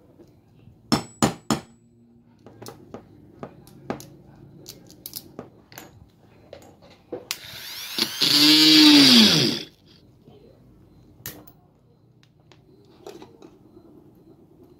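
Sharp clicks and light taps of small metal snap fasteners and hand tools on a work mat, three loud clicks coming close together about a second in. About seven seconds in, a loud whirring lasts over two seconds and falls in pitch as it winds down.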